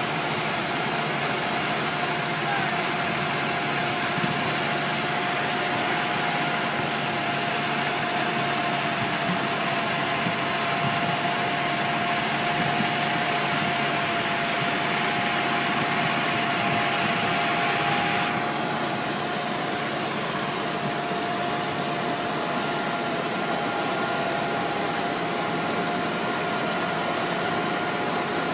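Heavy diesel engine running steadily, with a held whine over the engine noise. A high hiss drops away suddenly about two-thirds of the way through while the engine carries on.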